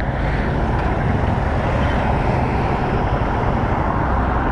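Steady road traffic noise, vehicle engines and tyres on the road, with a motorcycle approaching.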